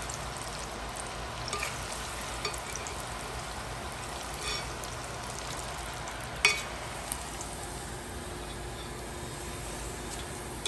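Cornstarch-coated pork tenderloin pieces deep-frying in a stainless steel pan of hot oil, a steady sizzle. A few sharp clicks of a metal utensil against the pan, the loudest about six seconds in.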